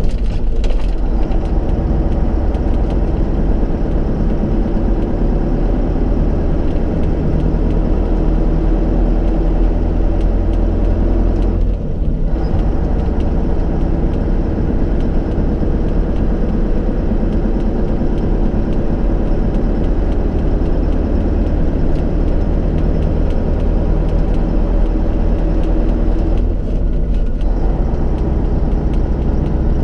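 Tatra 8x8 truck's diesel engine and drivetrain running steadily while driving, heard from inside the cab. The upper part of the sound briefly drops away twice, about twelve and twenty-six seconds in.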